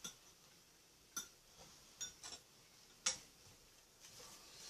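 Faint, sharp clicks of eating utensils against the metal grill pan and dishes, about five in all, the loudest about three seconds in, with a faint hiss near the end.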